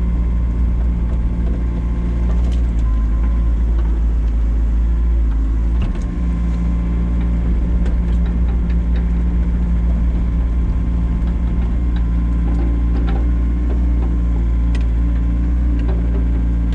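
Excavator's diesel engine running steadily while digging, with scattered light clicks and knocks from the machine working.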